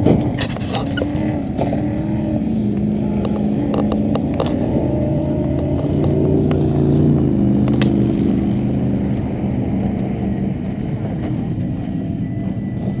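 Off-road race truck engine running steadily, its pitch wavering slowly up and down, with a few scattered sharp knocks.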